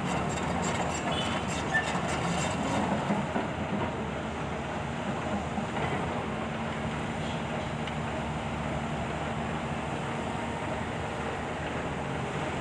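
Volvo excavator's diesel engine running steadily while it works, with a few clanks in the first few seconds and a steady hum coming in about halfway.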